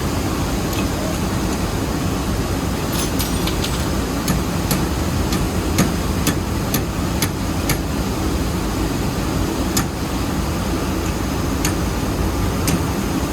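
Steady drone of rice mill machinery running, with irregular sharp metallic taps or knocks over it, coming about every half second for a stretch in the middle and then more sparsely.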